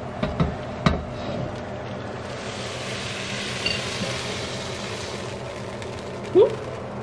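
Kitchen serving sounds: a few clinks of a utensil and dishes, then a soft hissing scrape. A short rising squeak comes near the end.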